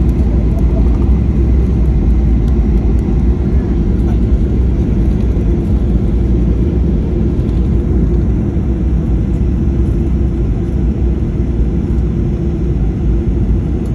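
Jet airliner's engines and wheels heard inside the cabin during the landing rollout: a loud, steady low rumble that eases slightly as the aircraft slows on the runway.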